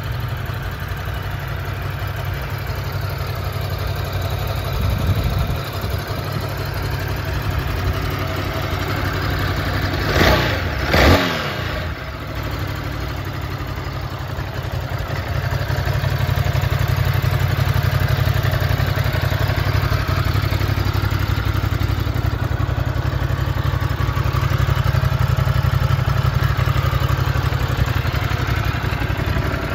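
Ducati Multistrada V2 S's 937 cc Testastretta V-twin idling steadily, with two quick throttle blips about a third of the way in, the revs rising and falling each time. It grows louder from about halfway.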